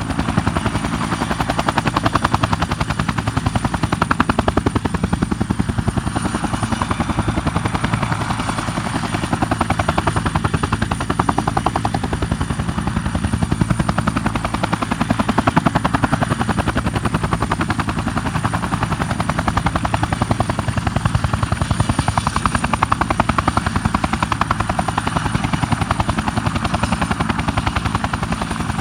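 Bell 212 twin-turbine helicopter with a two-bladed main rotor, hovering. The rotor chop beats rapidly and evenly at a steady level, with a thin high turbine whine held over it.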